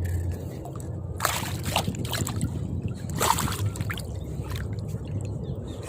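Water sloshing and splashing, with a few short splashes: about a second in and again past the three-second mark.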